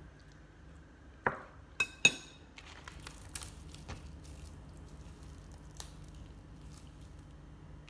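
A metal spoon and a small glass bowl clinking: three sharp clinks, the last two ringing, a little over a second in, as the bowl is handled and set down on the table. Then a plastic bag crinkles briefly, and there is one more light tap later.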